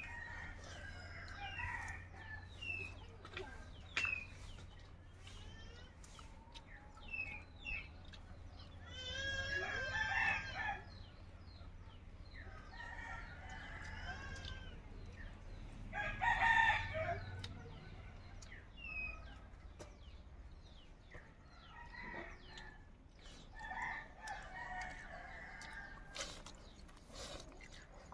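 Rooster crowing twice, with chickens clucking and small birds chirping in between.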